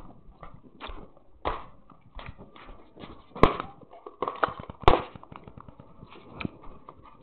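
Irregular knocks and taps with handling rumble, two sharper clacks standing out about three and a half and five seconds in.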